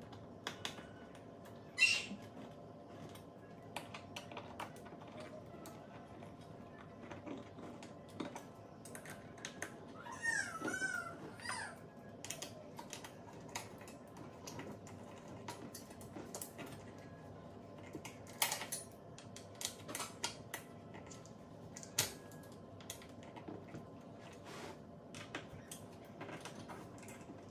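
Small, scattered clicks and ticks of hand assembly of a metal-framed counter-height chair: a hand tool and fasteners being worked at the underside of the seat. A sharper click comes about two seconds in, and a brief wavering high-pitched sound about ten seconds in.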